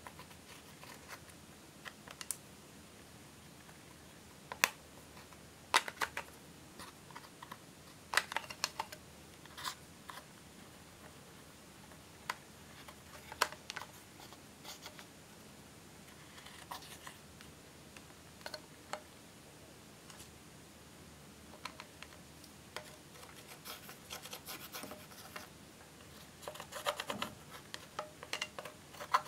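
A plastic tool scraping, tapping and breaking up pressed eyeshadow in a makeup palette: irregular sharp clicks and scratches, coming thicker and faster near the end.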